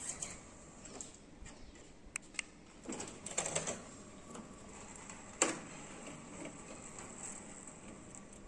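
Motorized sliding roof running along its track: a steady mechanical running sound with scattered clicks, a short rattle about three seconds in and a sharp click about five and a half seconds in.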